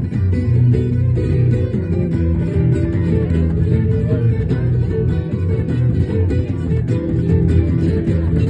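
Small live band playing guitars, plucked and strummed, in a steady passage with a heavy low end and no singing.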